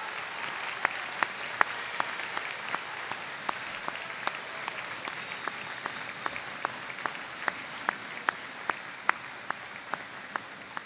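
A large audience applauding. One nearby person's claps stand out sharply over the crowd at about two or three a second, and the applause dies away gradually toward the end.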